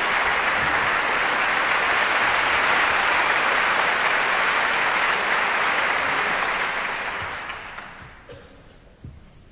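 Concert-hall audience applauding: dense, steady clapping that dies away from about six and a half seconds in, leaving the hall quiet apart from a small knock near the end.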